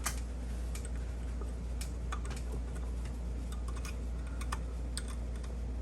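Scattered light clicks of small metal brake-pad hardware clips being handled and fitted, over a steady low hum.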